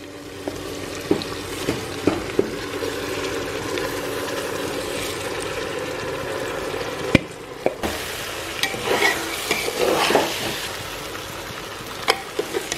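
Washed basmati rice poured into an aluminium pressure cooker onto onion-tomato masala sizzling in oil, a steady hiss with a few clicks of grains and metal. A sharp knock comes about seven seconds in. After it, a ladle stirs and scrapes the rice against the pot in irregular bursts.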